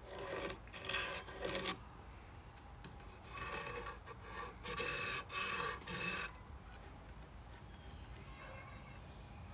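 Metal ruler and pencil working on a black limba guitar neck blank: several short scrapes and rubs of the ruler being slid into place and the pencil marking the wood, in the first six seconds, then quieter.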